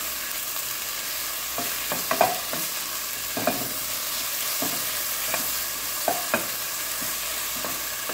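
Sliced okra sizzling in olive oil in a nonstick frying pan, with a spatula knocking and scraping against the pan as it is stirred, a stroke every second or so.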